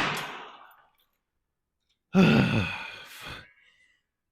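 A man's heavy breathy exhale, then about two seconds later a long voiced sigh that falls in pitch.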